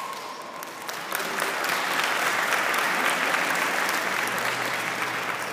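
Crowd applauding and clapping, swelling about a second in and easing off near the end.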